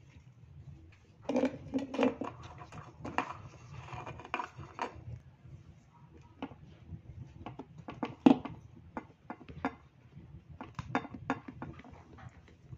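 Irregular clattering of small hard objects being handled: a busy run of clinks and knocks in the first few seconds, then scattered ones, with one sharp knock, the loudest, past the middle.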